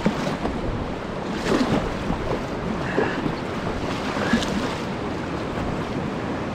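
Kayak paddle strokes dipping into the river about every second and a half, over a steady rush of moving water and wind on the microphone.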